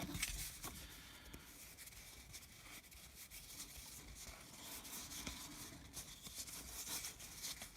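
Faint rustling and soft ticks of baseball cards being handled and slid against each other.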